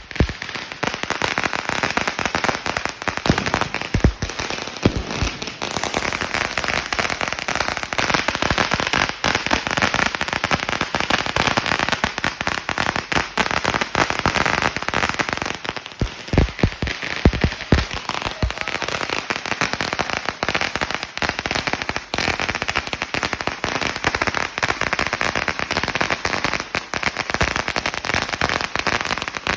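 A long firecracker roll going off in a continuous rapid string of bangs, dense crackling without a break. A few heavier bangs stand out about four seconds in and again around sixteen to eighteen seconds.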